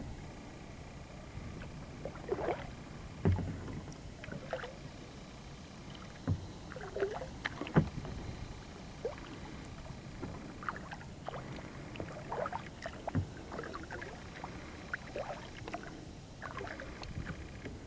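Kayak paddle strokes: the blades dip and splash irregularly in calm creek water, with dripping and a few sharp knocks, the loudest about three and eight seconds in.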